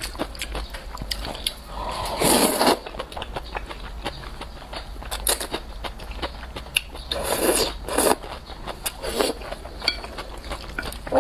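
A person slurping wide flat noodles in broth, loud noisy draws about two seconds in and again several times from about seven seconds in. Chopsticks click and tap against the bowl in between.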